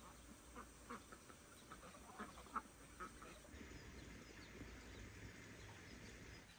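A flock of domestic ducks quacking quietly: a string of short quacks in the first three seconds, the loudest about two and a half seconds in.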